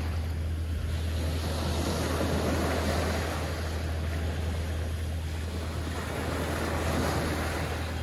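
Small ocean waves breaking and washing up onto a sand beach, the rush swelling twice, over a steady low rumble.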